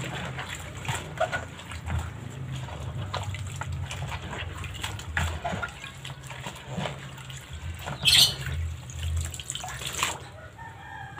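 Hands squeezing and swishing water spinach in a plastic basin of water: irregular sloshing and splashing, loudest about eight seconds in.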